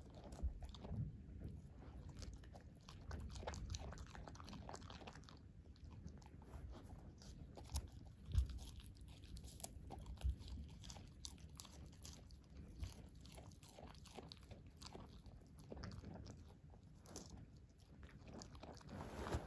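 Shetland sheepdog biting and chewing a lettuce leaf: irregular crisp crunches throughout, with a few louder low thumps about eight and ten seconds in.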